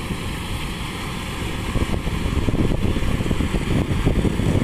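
Kubota DC-105X combine harvester running as it cuts rice, its diesel engine and threshing machinery making a steady low noise that gets louder about halfway through as the machine comes closer.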